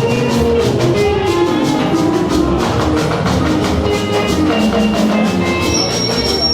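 Church band playing an instrumental passage, with drum kit and percussion keeping a steady beat under sustained keyboard and guitar notes.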